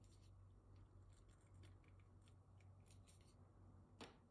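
Faint, scattered scraping and clicking of a small blade carving out the underside of a bow's hair plug to make room for the knot, with a sharper click about four seconds in.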